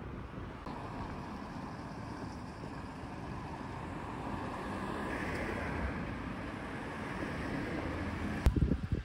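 Steady rumble and road noise of a moving vehicle, swelling somewhat in the middle, then a single sharp knock near the end, the loudest moment.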